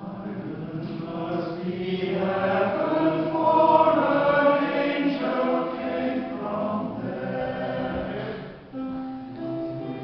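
A small mixed choir singing in harmony, swelling to its loudest about four seconds in and easing off. It breaks off just before nine seconds, and a new held chord follows.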